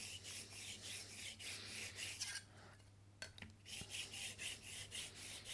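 Steel card scraper rubbed flat back and forth on a diamond sharpening stone to take off the burr. It makes a faint, uneven rasping, with a short pause about halfway through.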